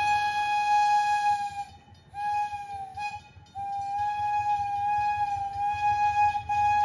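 Miniature park train's whistle blowing a steady single-pitched note in blasts. A long blast ends about two seconds in, a short blast follows, and a long blast starts about halfway through and carries on.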